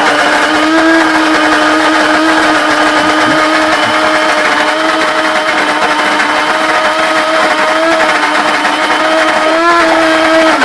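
FOHERE electric coffee grinder's metal flat burrs grinding a load of coffee beans, its motor running loud and steady with a constant hum.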